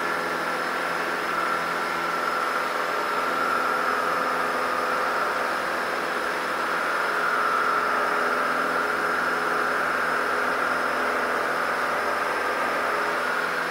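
Cessna 150's four-cylinder Continental O-200 engine and propeller droning steadily in the climb just after takeoff, heard inside the small cockpit.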